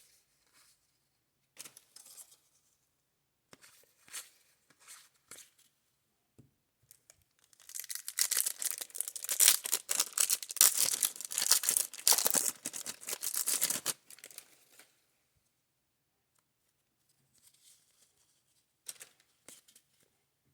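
Plastic card pack wrapper being torn open and crinkled, a loud, dense rustling stretch of about six seconds in the middle. Light rustles and clicks of cards being handled come before and after it.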